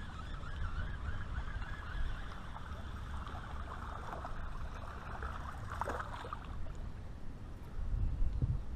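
Wind rumbling on a head-mounted camera microphone over water lapping around a small boat, with a splash as a fish strikes the lure at the surface a few seconds in, and a louder low bump near the end.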